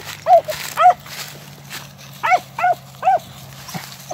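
Beagle hounds giving mouth on a rabbit's trail: short, arching yelps, two near the start and three more about halfway through.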